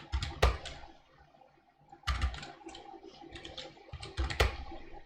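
Computer keyboard being typed on: irregular key clicks, a few louder than the rest, with a quicker run in the middle.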